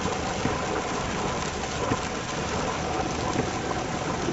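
Heavy rain falling on a moving car while its tyres run through water on the flooded road: a steady rushing noise with scattered small ticks of raindrops.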